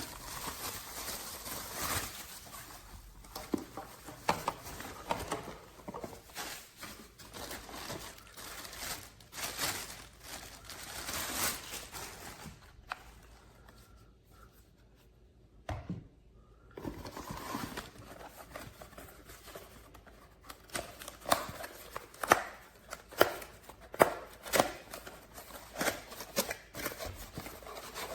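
Packaging being unwrapped and handled: irregular rustling, tearing and crinkling with sharp clicks and knocks, pausing briefly about halfway through.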